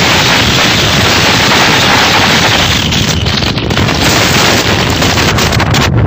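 Loud, steady rushing noise with crackle, with clusters of sharper crackles about three seconds in and again near the end.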